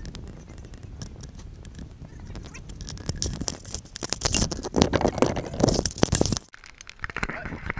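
Rustling, knocks and footsteps picked up by a body-worn action camera as its wearer walks, with loud buffeting and scraping noise in the middle that cuts off abruptly a little after six seconds in.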